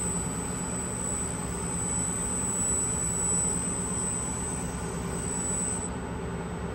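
FANUC CRX collaborative welding robot arm moving under its servo motors to a taught position: a steady low hum with a thin high whine that cuts off about six seconds in as the arm comes to rest.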